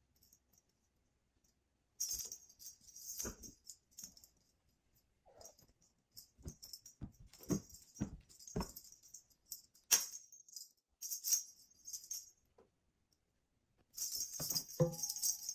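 Feather wand cat toy rattling and jingling in quick bursts as it is swung, with a kitten's paws thudding on a hardwood floor as it pounces.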